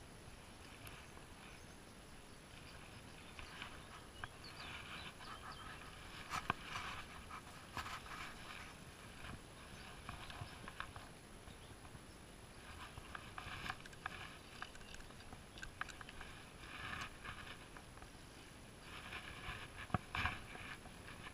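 Rustling and handling noises from an angler working a spinning rod and moving through grass and brush, in uneven spells with a few sharp knocks, the loudest about six seconds in and near the end.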